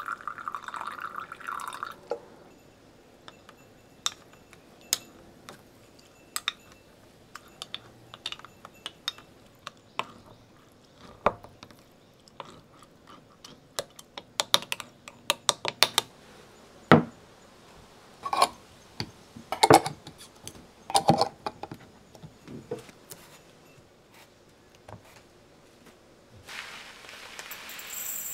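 Water pouring into a glass jar of rice koji for the first two seconds. Scattered light clicks and clinks of glass follow. Near the end comes the steady hiss of dry rice koji grains pouring into an empty glass mason jar.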